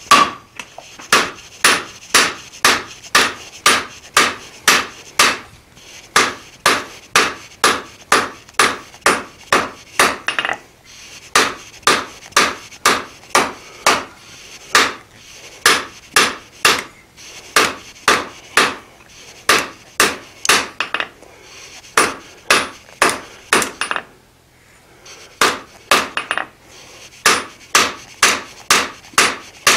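Hand hammer striking a hot mild steel bar on an anvil, steady blows about two to three a second, each with a short ring, drawing the bar out. The hammering stops briefly a few times, once for about a second and a half.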